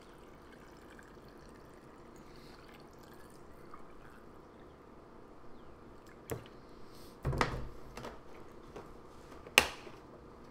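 Salt brine trickling in a thin stream from a plastic jug into a glass jar packed with carrot sticks, topping the jar off for fermentation. After that come a few knocks and a thump, the loudest a sharp knock near the end.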